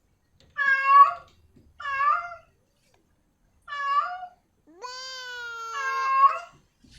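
Female cat in heat meowing to call a tom: four short meows, each falling then rising in pitch, with a longer, steady-pitched call that starts with an upward slide and overlaps the last meow near the end.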